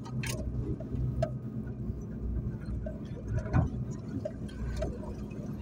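Car driving slowly on a rough overgrown track, heard from inside the cabin: the engine runs low and steady while gorse and brush branches scrape and tick against the bodywork, with one louder scrape about three and a half seconds in.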